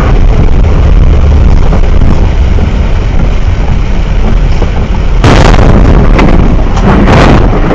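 Steady low rumble of a truck driving on a wet highway, heard from inside the cab, then about five seconds in a sudden loud crash as something strikes the front of the cab. The noise lasts over a second and flares again near the end.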